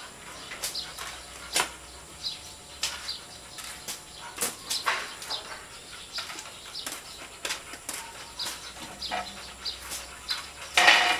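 Backyard ambience: scattered short bird chirps and small clicks, with a louder clatter about a second before the end.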